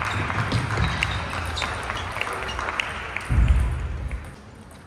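Table tennis hall ambience: scattered sharp clicks of table tennis balls striking tables and bats over a steady hubbub, with a loud low thump about three and a half seconds in.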